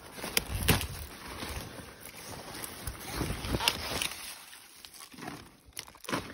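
Large collard-type leaves rustling and crackling as they are gripped and picked by hand close to the microphone, with a few sharp clicks among the rustling.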